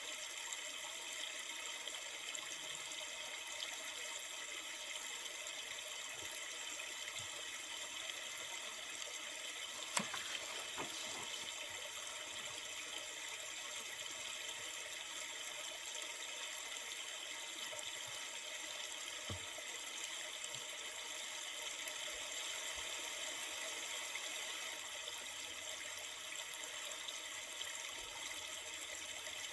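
Steady rushing of a flowing river, an even wash of water noise, with a single sharp click about ten seconds in.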